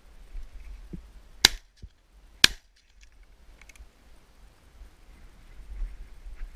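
Two shotgun shots, about a second apart, fired at a flushing red-legged partridge.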